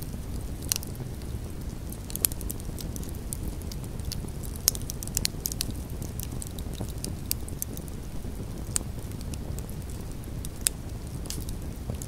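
Campfire burning with wood logs crackling, a steady run of irregular sharp pops and snaps over a low steady rumble, a few pops louder than the rest.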